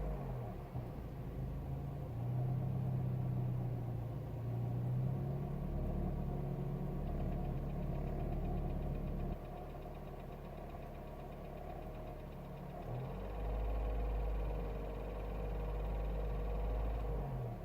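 Renault Mégane I 1.6 16V K4M petrol engine running under held throttle, heard inside the cabin, with a knocking, rattling noise from the engine. The revs drop about halfway through and come back up a few seconds later. The rattle turned out to be a loose oil pump drive chain and a slightly binding oil pump.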